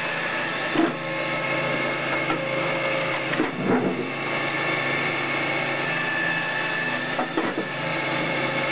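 Electric-hydraulic firewood processor running in automatic mode: its electric motor and hydraulic pump give a steady hum with a few held tones. Three times, about every three and a half seconds, split firewood knocks and clatters as each piece is cut, split and dropped into the chute.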